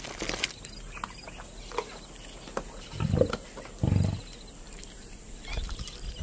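Lioness feeding on a carcass: wet tearing and chewing of meat, with two short, low growls about three and four seconds in.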